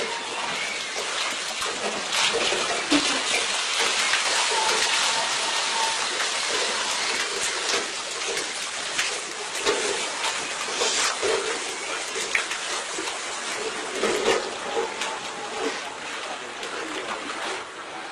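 Well water gushing and splashing unevenly as it is pumped.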